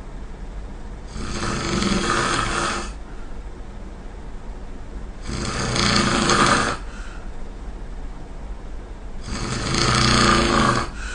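A person snoring loudly: three snores, each about a second and a half long, coming roughly every four seconds, over a steady low hum.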